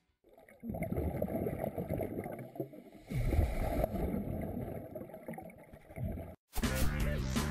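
Underwater sound of a scuba diver breathing through a regulator: muffled rushing and gurgling of exhaled bubbles, surging about half a second in and again about three seconds in. It cuts off abruptly and music starts near the end.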